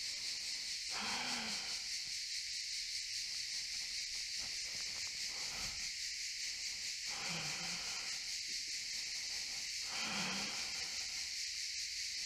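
Cicadas buzzing in a steady, continuous high-pitched chorus.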